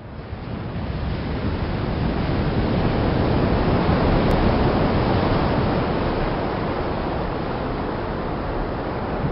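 Sea ambience: a steady rush of wind and ocean surf that fades in over the first couple of seconds and swells gently.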